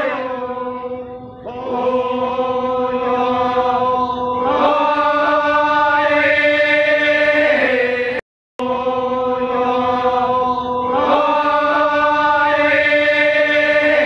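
A group of voices chanting a slow ritual chant in long, drawn-out held notes that shift pitch every few seconds. The chant breaks off for a moment about eight seconds in, then carries on.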